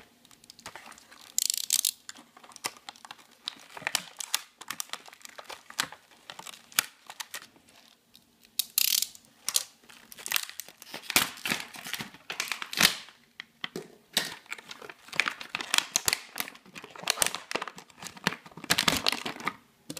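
Packaging of a 5x5 speed cube being unwrapped and handled: crinkling and tearing of the wrapping with many scattered clicks and rustles, and louder bursts of rustling about a second and a half in, around nine seconds, and near the end.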